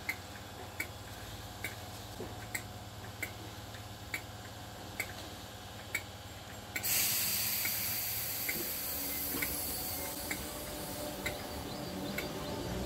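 Merseyrail electric train standing at the platform with a low steady hum and short high beeps repeating about every 0.8 s. About seven seconds in, a sudden loud hiss of released compressed air begins and carries on, with the beeps continuing over it.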